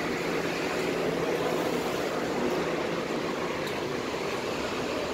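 Steady city street noise of passing traffic, with a faint low hum through the first few seconds.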